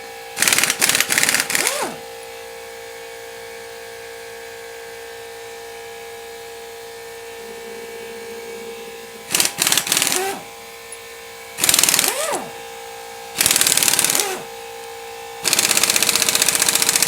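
Pneumatic impact wrench hammering at the head bolts of a 7.3 IDI diesel in five rattling bursts, the last one the longest, several of them followed by a short falling whine as the tool winds down. An air compressor runs steadily underneath with a constant hum.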